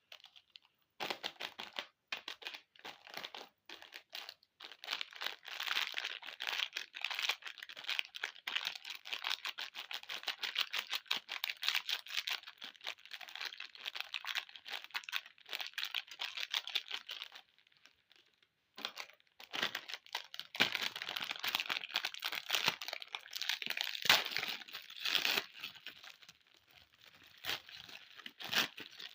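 Plastic candy and lollipop wrappers crinkling and tearing as they are unwrapped by hand, with a short pause a little past halfway.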